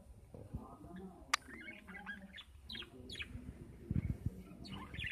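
Budgerigars chirping: short, quick, falling chirps in a loose string, with a sharp click early on and a few low bumps about four seconds in.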